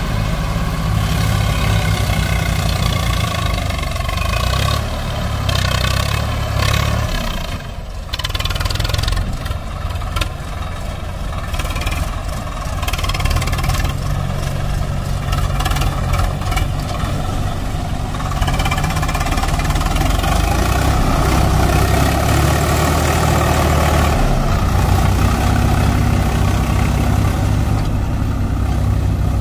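Diesel engines of a JCB 3DX backhoe loader and a Swaraj 744XT farm tractor running at a loading site. The engine sound rises a little about two-thirds of the way through.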